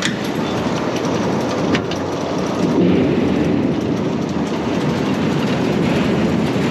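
Potato harvester running, a loud steady clattering rattle from its machinery as potatoes and dirt are carried along its webs.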